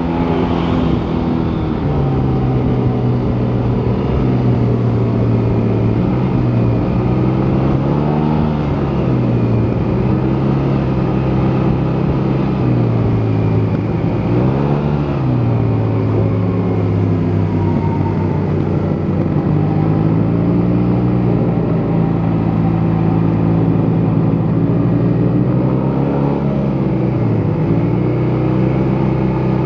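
Yamaha T-Max 530 scooter's parallel-twin engine running through its stock exhaust, the note mostly steady with brief drops and rises in revs around 8, 15 and 26 seconds in.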